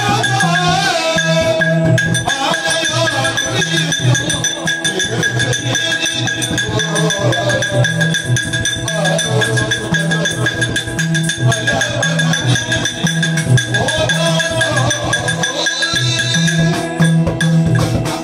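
Live Yakshagana music: a steady held drone under a wandering melody, with a hand drum beating a repeating pattern and small cymbals or bells jingling.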